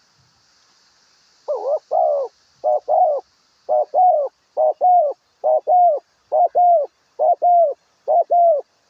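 A dove cooing: a steady series of about eight paired coos, each a short note followed by a longer falling one, starting about a second and a half in.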